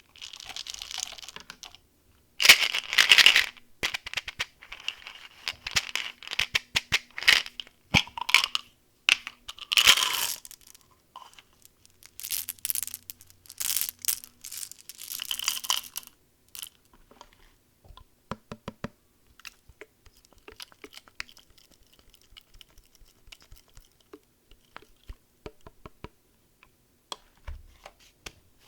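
Plastic candy wrappers and packaging being torn open and crinkled in loud bursts, then quieter small clicks and rustles of handling in the second half.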